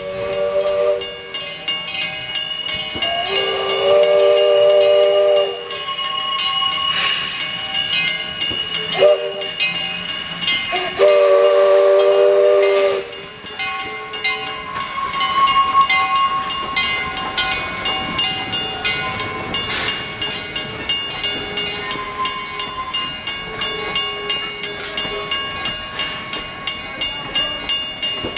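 Baldwin steam locomotive's chime whistle sounding four blasts, the third short and the last long, in the pattern of a grade-crossing signal. Then the train rolls past with a steady clicking of wheels over the rail joints, about two clicks a second.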